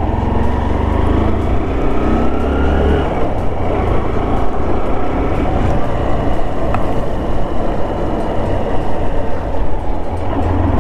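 Motor scooter being ridden on a road: steady engine and road noise, the engine pitch rising as it pulls away in the first few seconds.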